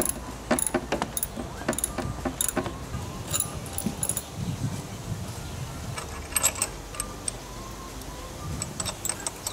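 Metal hand tools and hardware clinking and tapping: wrenches, sockets and bolts knocking together as a striping-roller bracket is bolted onto a push mower. The clicks come in quick irregular runs, thickest in the first few seconds, with further scattered groups later.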